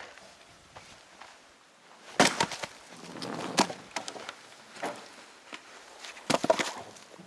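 Axe splitting firewood: two sharp blows into a log about four seconds apart, each followed by wood cracking and pieces clattering, with lighter knocks in between.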